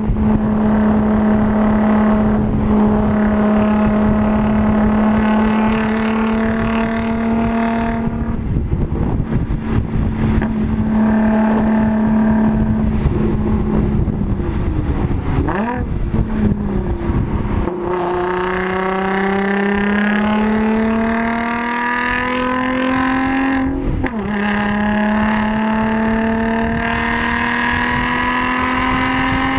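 Supercharged 3.0-litre V6 of an Audi S4 with an AWE Touring exhaust, heard from inside the cabin on track. It holds high revs at first, then comes off the throttle with a quick rev blip on a downshift about halfway through. After that it pulls hard with the pitch rising, is cut short by an upshift, and climbs again in the next gear.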